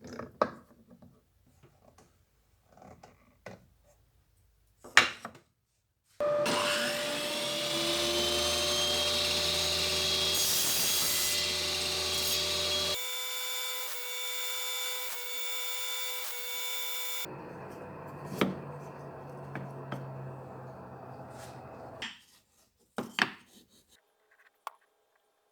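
A few knocks and one sharp knock on wood, then a power tool spins up with a rising whine and runs steadily for several seconds. It changes abruptly to quieter steady running, then gives way to scattered knocks near the end.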